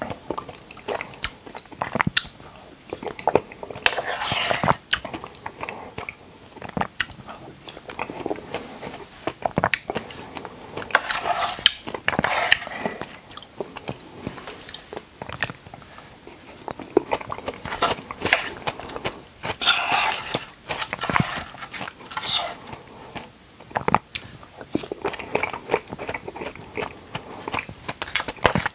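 Close-miked eating of dragon fruit: irregular bites and chewing, with many short, sharp clicks and brief bursts of mouth noise.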